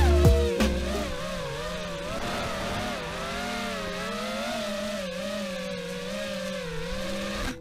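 Brushless motors and propellers of a 220-size FPV racing quadcopter whining in flight, the pitch wavering up and down constantly with the throttle. The sound cuts off abruptly at the end, and music is fading out at the start.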